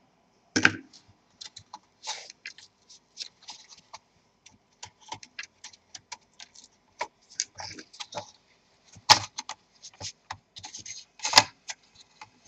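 Irregular small clicks, taps and scrapes of a plastic prying tool and fingers on a laptop motherboard and its plastic chassis as the board is worked loose from one side, with sharper knocks about half a second in, about nine seconds in and near the end.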